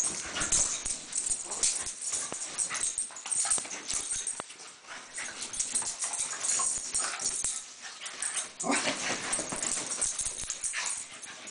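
Two dogs play-fighting on a bed: irregular scuffling and rustling of the bedding, with dog noises mixed in.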